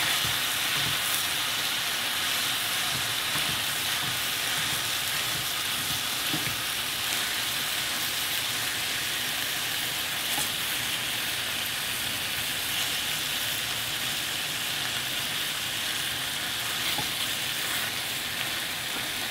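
Raw ground beef sizzling steadily in a hot frying pan while a spatula breaks it up and stirs it.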